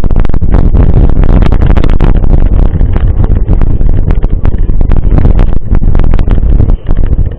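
Loud wind buffeting on an action-camera microphone during a mountain-bike ride, with many sharp knocks and rattles from the bike going over rough ground. The level dips briefly near the end.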